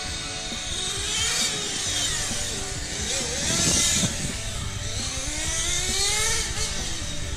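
Kyosho Phantom 4WD radio-controlled car driving laps: its motor whine rises and falls in pitch as it speeds up and slows, with a swell of hiss about halfway through.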